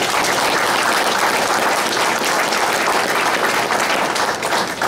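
Room of seated guests applauding: a dense, steady round of clapping that starts suddenly and thins out into separate claps near the end.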